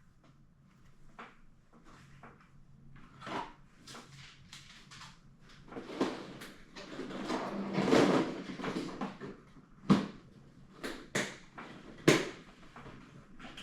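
Handling of a die-cast toy car's cardboard and plastic packaging: a string of clicks and light knocks, with a longer stretch of rustling and scraping in the middle.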